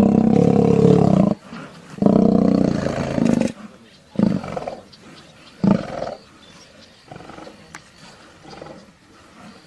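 Male lions fighting, snarling and roaring: two long, loud roars in the first few seconds, then shorter growls, with fainter rumbling growls in the second half.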